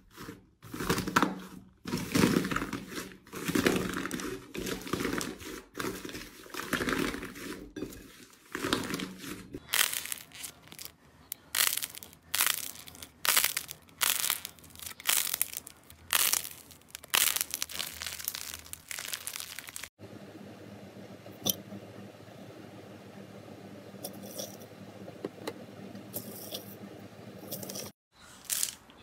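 Hands playing with slime: a dried, crusty slime crackling and tearing as it is broken open, then a regular series of squeezes about once a second, then a quieter stretch with a few faint clicks.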